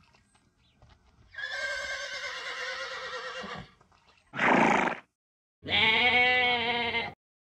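A horse whinnying, a quavering call of about two seconds, then a short loud call, then a goat bleating once for about a second and a half with a wavering pitch.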